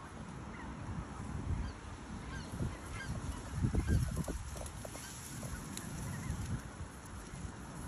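Scattered faint honking calls of geese, with wind gusting on the microphone, the strongest gust about four seconds in.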